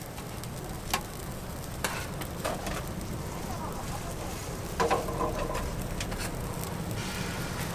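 Batter sizzling as it is poured onto a hot cast-iron chrysanthemum-bread mold, with a steady hiss, a low hum beneath it, and a few sharp clicks, the loudest cluster about five seconds in.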